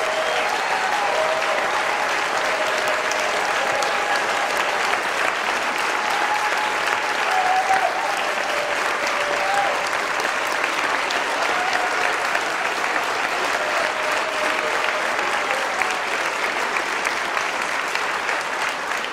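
Large audience clapping steadily in a standing ovation.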